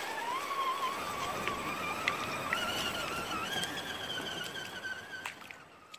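Electric motor and gears of a 1:10-scale RC rock crawler whining, the pitch slowly rising as it drives on, over the splash of its tyres through shallow water and stones, with a few small clicks. The sound fades out near the end.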